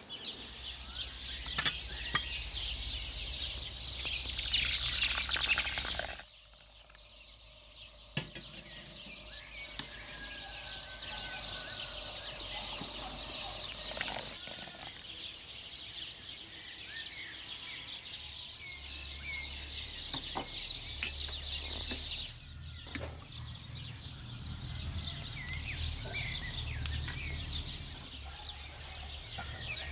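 Outdoor village ambience of birds chirping and calling, with a few light clicks and knocks.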